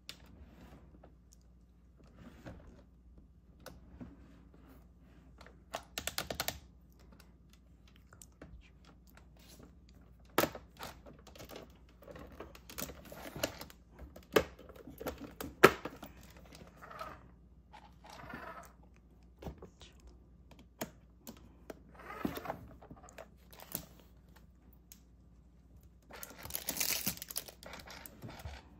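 Scattered clicks and knocks of hard plastic parts and packaging being handled, with short bursts of rustling about six seconds in and again near the end.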